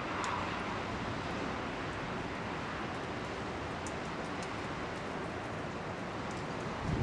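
Steady wind blowing outdoors, an even wash of noise with a low rumble underneath and a few faint ticks.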